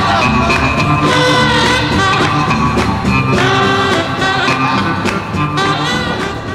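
A song with singing over a band playing a steady beat, starting to fade out near the end.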